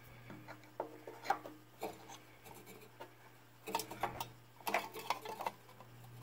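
Scattered small clicks, taps and short rubbing scrapes as a cover on a toy steam engine is worked loose by hand, gently, after its screws have been taken out.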